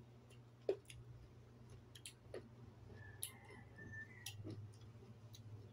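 Faint scattered clicks and pops of sea grapes (lato seaweed) being picked from the bunch and chewed, over a low steady hum.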